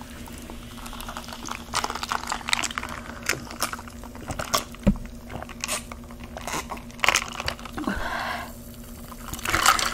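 Close-up crunching of tortilla chips being bitten and chewed, a run of irregular crisp cracks.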